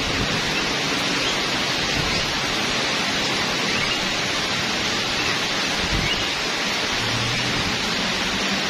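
A steady, even hiss with no distinct events. A low hum comes in about seven seconds in.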